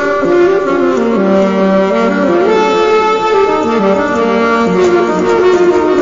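Saxophone being played, a melody of held notes that step up and down in pitch.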